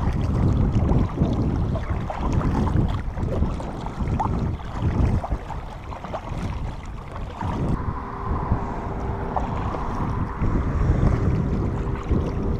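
Wind buffeting the microphone while a kayak is paddled across open water, the paddle blades dipping and splashing in a loose rhythm. A faint steady hum joins about eight seconds in.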